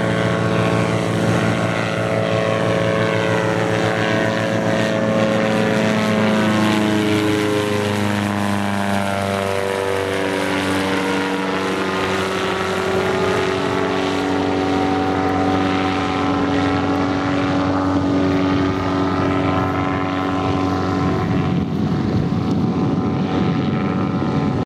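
Kolb Kolbra ultralight's engine and propeller drone as it flies overhead: a steady engine note whose tones slide up and down around the middle as the plane passes over.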